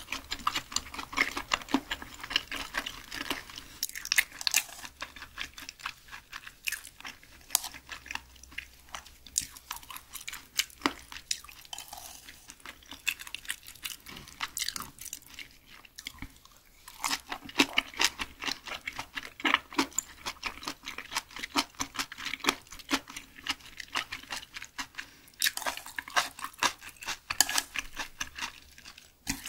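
Close-miked chewing of raw Spanish mackerel sashimi wrapped in seasoned laver with mustard-leaf kimchi: a dense run of small clicking mouth sounds, with a brief lull about sixteen seconds in.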